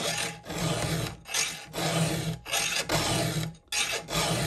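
Round chainsaw file rasping across a saw chain's cutter teeth in repeated push strokes, about six in a row. The chain is getting its first sharpening.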